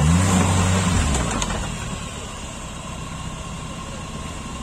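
Off-road 4x4's engine revving: its pitch dips and rises again, holds briefly, then fades after about a second and a half to a quieter steady rumble.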